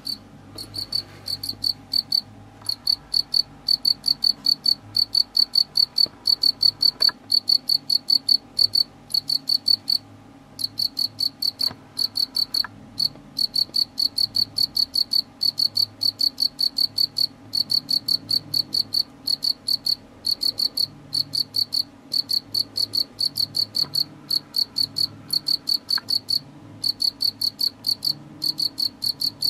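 A male field cricket's calling song: a loud, high, rhythmic chirping at about three chirps a second, in long runs broken by a few short pauses.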